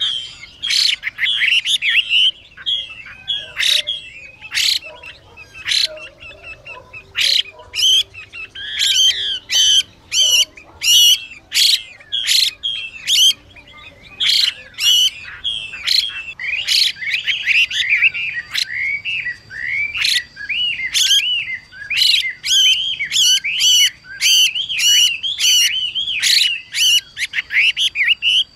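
Chinese hwamei (Garrulax canorus) calling and singing: many short, harsh hissing notes in quick succession, mixed with fast whistled phrases that glide up and down. The hissing is the female hwamei's 'xùy' call, which keepers use to rouse male hwamei into song.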